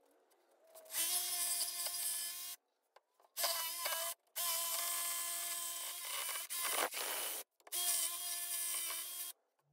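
Bosch jigsaw cutting a curved hole through 2x4 boards, its motor running at a steady pitch with the blade rasping through the wood. It runs in four or five separate stretches of one to two seconds each, with brief silences between them.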